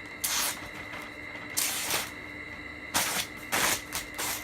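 A full-tang Bowie knife's blade slicing through a sheet of paper in about five short, hissing strokes, a test of its edge after sharpening.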